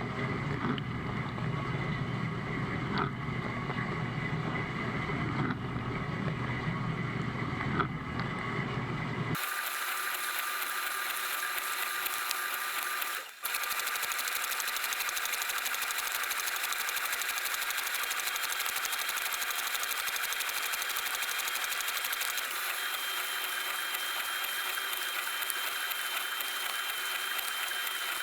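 A dishwasher running its wash cycle, heard from inside the machine through an action camera's waterproof case: a steady mechanical wash and spray noise. About nine seconds in the sound changes abruptly from a low, heavy noise to a thinner, higher hiss with a faint steady whine, and it drops out for a moment a few seconds later.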